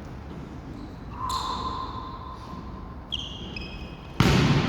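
Volleyball play in a gym hall: short squeaks of sneakers on the court floor, then a sudden loud burst about four seconds in, such as a ball being struck or players shouting.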